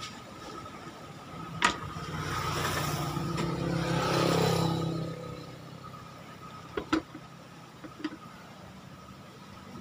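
A motor vehicle passing close by, swelling and fading over a few seconds above a steady low hum, with a few sharp clicks.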